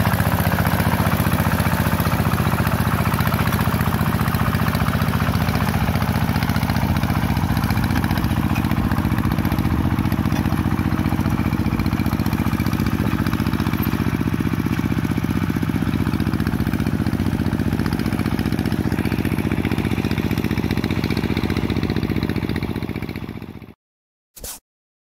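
Two-wheel hand tractor's single-cylinder diesel engine running steadily under load as it drags a levelling board through paddy mud. It cuts off abruptly near the end, followed by two brief blips.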